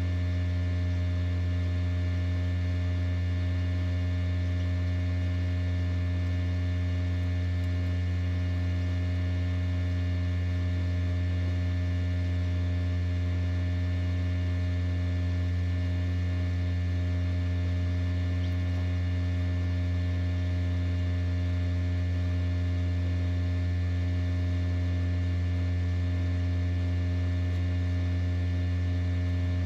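Steady low hum with a string of even overtones, unchanging throughout: an incubator running.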